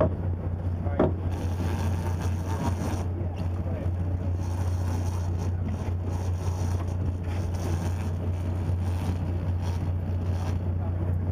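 Sportfishing boat's engine running with a steady low hum, with a sharp knock about a second in.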